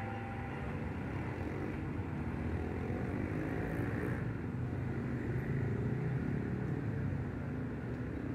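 Diesel locomotive engine running as a train goes by: a steady low rumble with an engine note that swells a little past the middle.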